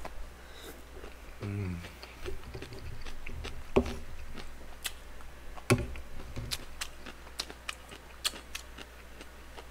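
Close-miked eating: chewing and mouth clicks from a person eating kimchi stew and rice, with a short hummed "mm" about a second and a half in. Two louder knocks near 4 s and 6 s come from the metal spoon in the rice bowl.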